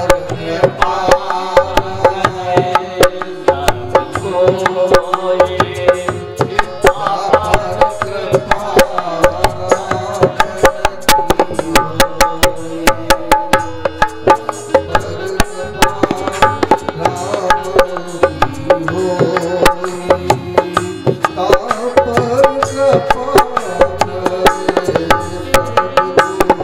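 Live Indian devotional music without words: tabla and other percussion keep a quick, steady beat under sustained melodic notes.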